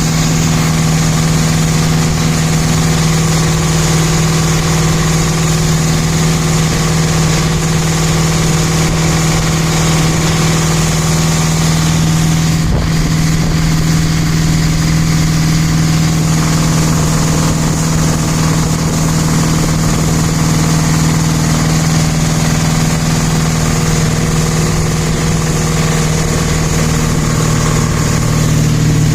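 Chevy 283 small-block V8 in a 1962 Crusader marine conversion, idling steadily on its first run.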